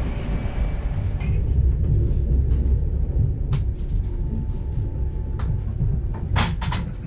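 Passenger train running, heard from inside the carriage: a steady low rumble, with a few short clicks and a quick run of them near the end.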